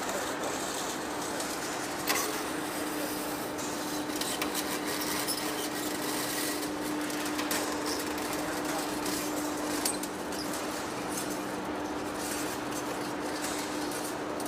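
Heavy face lathe running in a machine shop: steady machine noise with a steady hum, and a couple of short knocks.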